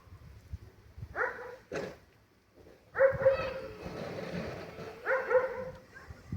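A dog barking three times, each bark drawn out and held at a steady pitch, about two seconds apart.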